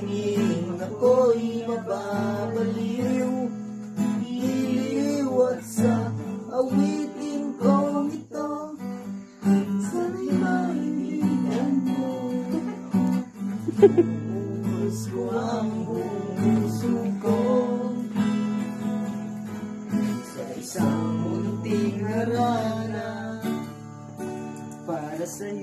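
Acoustic guitar being strummed through a song, with a voice singing along. A single sharp knock sounds about halfway through.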